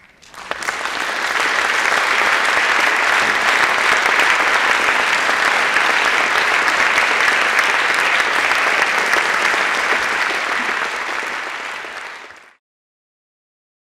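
Audience applauding. The clapping swells in over the first second, holds steady, then thins and cuts off abruptly about twelve and a half seconds in.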